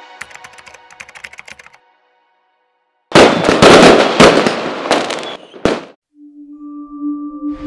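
Fireworks crackling and bursting, loud for about three seconds after a faint patter of crackles at the start. Near the end a held musical tone begins.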